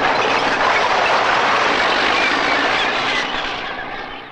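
Dense din of a large flock of gulls calling together, a steady wash of noise that fades away over the last second or so.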